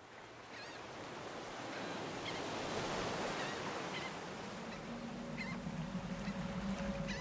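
Ocean surf washing steadily, fading up at the start, with short bird calls over it now and then. A low held music note comes in about five seconds in.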